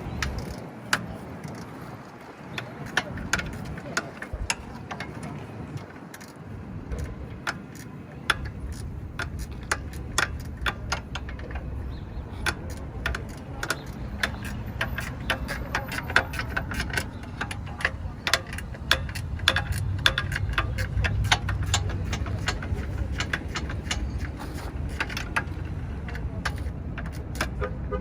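Irregular metallic clicks and clinks of hand tools at work on car suspension. A low steady rumble joins about a third of the way in.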